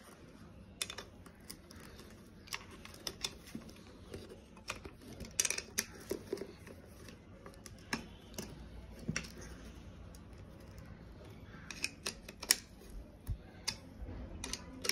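Irregular small metal clicks and taps as nuts are unscrewed by hand and with a small spanner from a motorcycle's rear metal plate.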